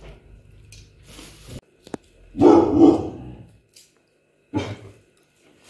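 Pit bull barking in alert at a sound from outside: two loud barks about two and a half seconds in, then a shorter one near the end.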